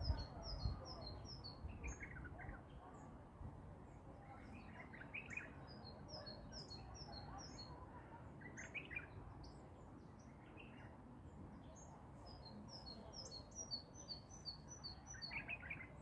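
Songbirds singing: a fast run of short, high repeated notes comes three times, at the start, around five seconds in and again near the end, mixed with shorter, lower chirps, over a faint low background rumble.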